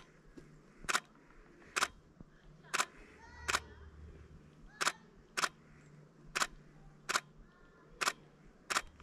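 A series of sharp, very short clicks at uneven intervals, roughly one a second, with a few faint chirps in the middle.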